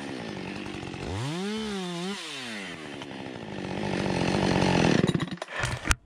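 Husqvarna 550 XP chainsaw bucking a log: the engine revs up and back down once, then runs at speed through a cut that gets louder until the saw stops about five seconds in. A sharp knock comes just before the end.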